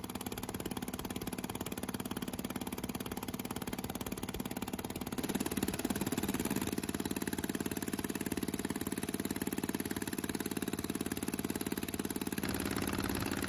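Small open fishing boat's engine running steadily under way, with the rush of water and wind over it; it gets louder about five seconds in.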